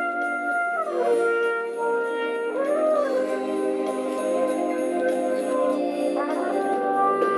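Music: a melody of a few long held notes, each sliding smoothly into the next, from a brass-like wind instrument.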